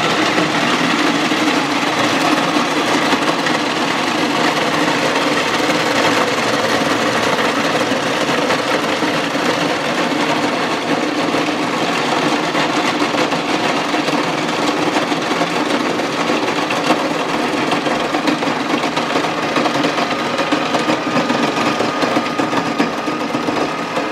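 Nostalgia snow cone cart's electric ice shaver running steadily, its stainless steel blade shaving ice cubes into snow.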